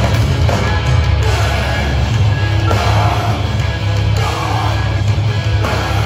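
Live hardcore band playing loud through a PA, heard from within the crowd: distorted electric guitars, bass and drums.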